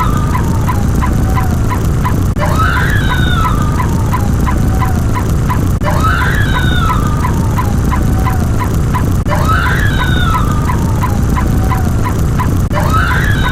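An animal call sound effect looped over and over: a rising then falling warbling call that starts again about every three and a half seconds, four times, over a steady low rumble and a fast regular ticking.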